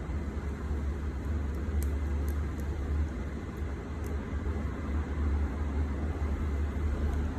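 Steady low background hum with a faint even hiss, and a few faint, light high ticks scattered through it.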